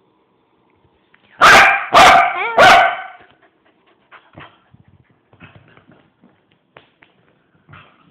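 A dog barking three times in quick succession about a second and a half in, very loud and close, with a short whine between the second and third bark. After that there are only faint scuffs and clicks.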